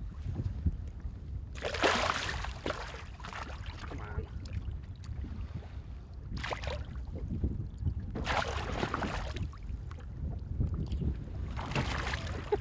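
Water splashing around a landing net held over the side of a boat, in four separate bursts, over a steady low wind rumble on the microphone.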